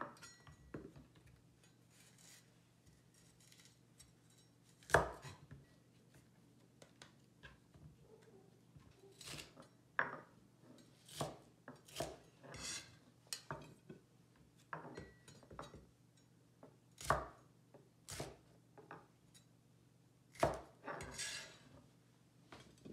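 Chinese cleaver chopping bell pepper on a plastic cutting board: irregular knocks of the blade striking the board, in short runs with pauses between.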